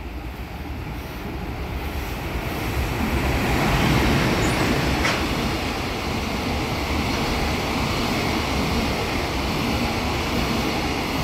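A freight train passing: an EF210 electric locomotive goes by, followed by a long string of Chiki flat wagons loaded with steel rails, their wheels rolling steadily over the track. The sound builds to its loudest as the locomotive passes about four seconds in, then holds steady as the wagons roll by.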